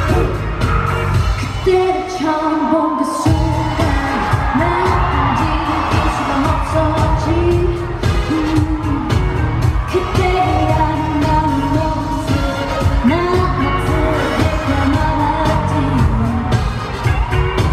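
K-pop girl group singing over a loud pop backing track through arena speakers, heard from the audience. The bass drops out about two seconds in and comes back with a hit a second later.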